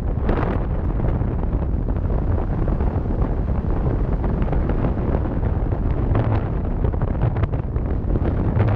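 Wind buffeting the microphone over the steady rumble of a moving car.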